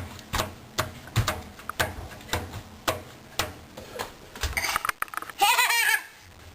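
Clothes dryer drum tumbling, with something inside knocking about twice a second. Near the end comes a loud, wavering, bleat-like cry lasting about half a second.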